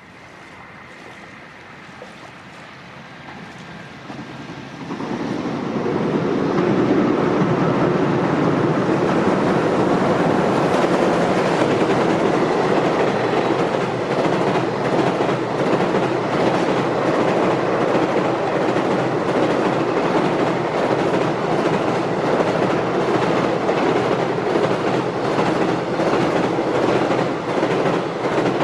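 Freight train crossing a steel railway bridge: a rumble that builds about four seconds in, then a steady loud rumble and clatter of wheels with regular clacking over the rail joints.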